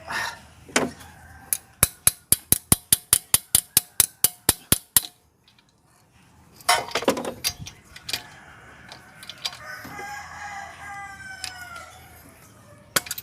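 Socket ratchet clicking in a quick even run, about four to five clicks a second, while a spark plug is loosened from a Toyota 2E engine. A few seconds later a rooster crows in the background, a call that falls in pitch.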